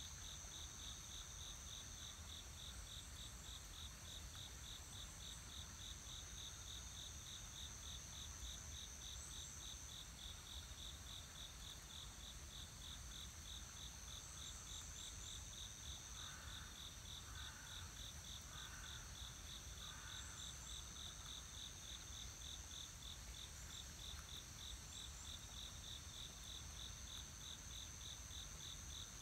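Insect chorus: one insect keeps up a fast, even pulsing chirp while another holds a steady high trill that breaks off now and then. A little past halfway come four short, lower chirps about a second apart, over a faint low rumble.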